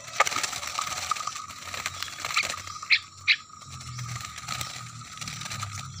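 Small birds scrambling and fluttering inside a wire-mesh cage, with rustling and clicks as the cage is handled, and two short high chirps about three seconds in.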